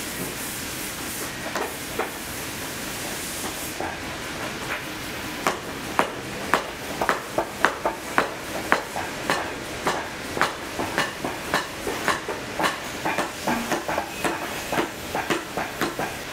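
A steady hiss that stops about four seconds in, then a run of sharp knocks or taps, two or three a second, from about five seconds in to the end.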